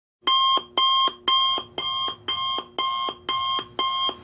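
Electronic alarm beeping, a steady run of identical high beeps about two per second, each ending with a short lower two-note tone.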